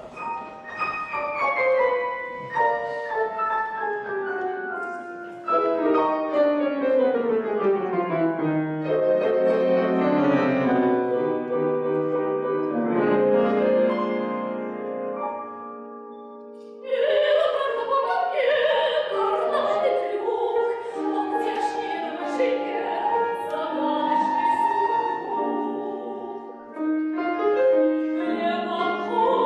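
Grand piano playing a descending introduction passage; a little over halfway through, a woman's operatic singing voice enters over the piano accompaniment.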